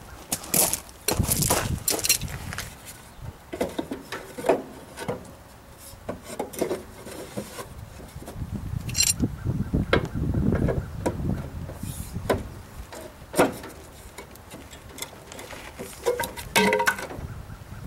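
Irregular knocks, clanks and scraping from hand work with tools and metal parts.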